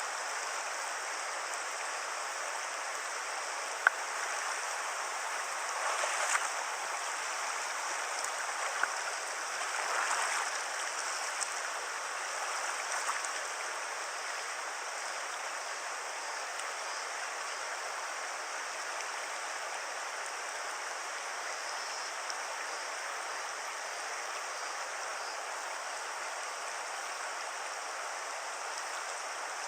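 A river's current rushing steadily, with a sharp click about four seconds in and a few brief louder surges of water between about six and thirteen seconds.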